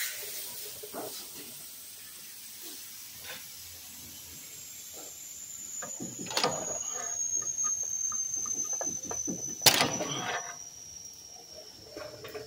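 Metal knocks and scraping of a pry bar working the driver-side CV axle out of a GMC Acadia's transmission: a few light taps, then a run of clanks and scrapes with the loudest knock about ten seconds in. A faint high whine falls slowly in pitch through the second half.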